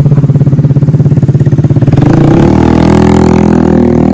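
Vespa Sprint scooter's single-cylinder four-stroke engine idling with a fast, even putter through a new exhaust, then revving up about two seconds in as the scooter pulls away.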